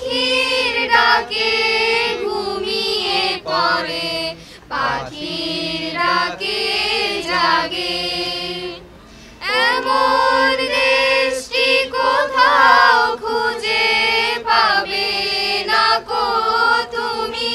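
A mixed group of young men and women singing together to a harmonium, the hand-pumped reed organ holding sustained notes under the voices. There is a brief break in the singing about nine seconds in.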